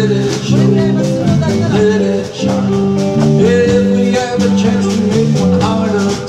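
Live country-and-western band playing: electric and acoustic guitars, electric bass and a drum kit keeping a steady beat.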